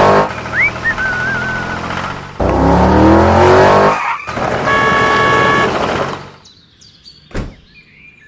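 Car engine sound effect revving up twice, each time rising in pitch, then running on as a noisier stretch with a few steady tones before fading. A single sharp knock near the end.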